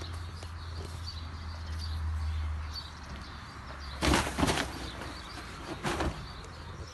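Rustling of hay and a fabric pop-up garden bag as it is grabbed and handled, in short bursts about four seconds in and again near six seconds, over a low rumble that fades out before halfway.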